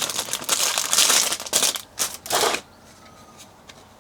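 Packaging crinkling and rustling as a monitor sun hood is unwrapped, stopping about two and a half seconds in, followed by a few faint clicks.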